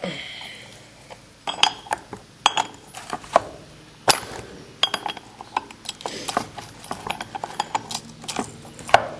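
Irregular metallic clicks, clinks and knocks of a T-handle wrench and screwdriver working against the edger's blade nut and blade as he strains to turn a tight nut.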